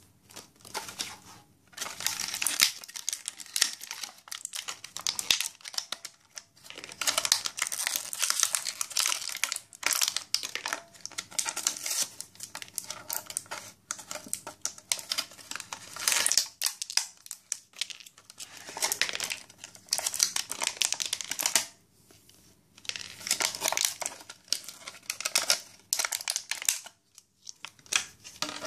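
Clear plastic parts bag crinkling on and off as hands handle it and take small toy-block pieces out.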